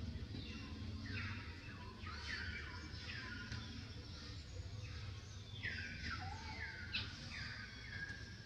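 Birds calling: a string of short high chirps, each sliding down in pitch, coming roughly once a second over a low steady rumble.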